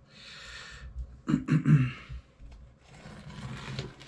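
A cloth rubbing along HO-scale model train rails to wipe off ballast glue, in two spells of scraping, with a brief low voice sound about a second and a half in.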